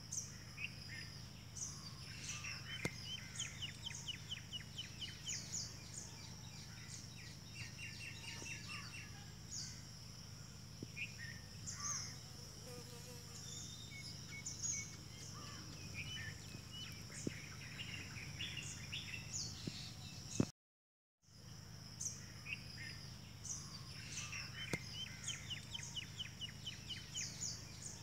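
Several small birds chirping and trilling in quick, overlapping calls over a steady high-pitched drone. The sound drops out completely for a moment about two-thirds of the way through.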